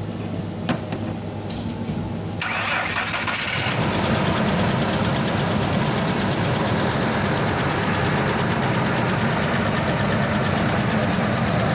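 Ford F-150's 4.2-liter V6 engine being cranked about two and a half seconds in. It catches about a second later and keeps running steadily. This is its first start after three years sitting, on a newly fitted fuel pump.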